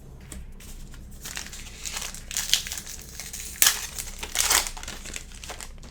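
Sports-card pack wrapper crinkling and tearing as a pack is opened by hand, in irregular crackling bursts, loudest in three sharp rips about midway through.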